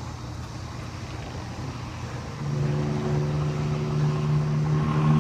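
A motor vehicle's engine running with a steady low hum that grows louder about two and a half seconds in.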